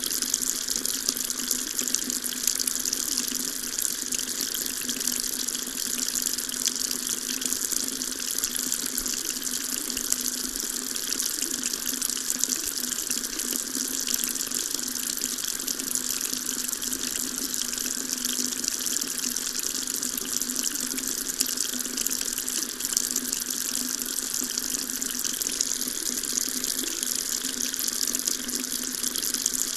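Water tap running steadily, a constant stream of water splashing into a sink.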